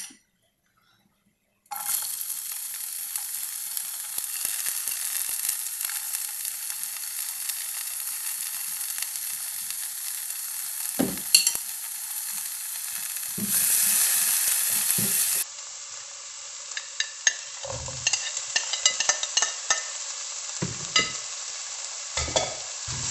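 Chopped onion, garlic and peppers sizzling as they fry in hot palm oil in a pot, starting abruptly about two seconds in. A spoon stirring them taps and scrapes against the pan in the second half.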